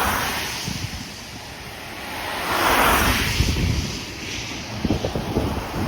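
Road traffic passing: vehicles go by one after another, each a swell of tyre and road noise that rises and fades, the biggest about halfway through. Wind buffets the microphone underneath.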